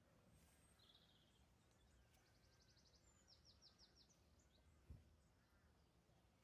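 Near silence with faint wild birdsong: a rapid trill, then a short run of falling chirps in the middle. A single dull thump about five seconds in.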